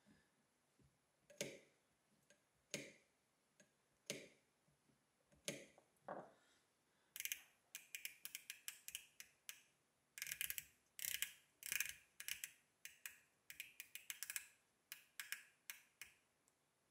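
Mechanical digit counter of a restored vintage measuring wheel clicking over, now working again after having stopped. Single clicks come about every second and a half, then from about seven seconds in there are quick runs of clicks while the counter's knob is turned.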